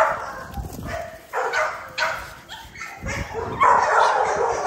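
XL pitbull puppies barking and yipping as they play-fight. There are several short barks in a row, with a louder, busier stretch near the end.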